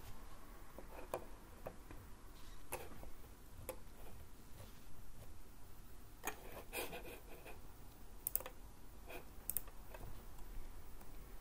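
About ten scattered, irregular clicks from a computer keyboard and mouse as a web search is run and the results are scrolled, over faint room tone.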